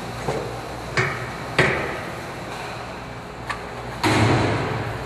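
Metal clanks of a tug's hitch coupling onto a cart's tow bar: two sharp knocks about a second in, half a second apart, then a louder, longer clatter about four seconds in, over a low steady hum.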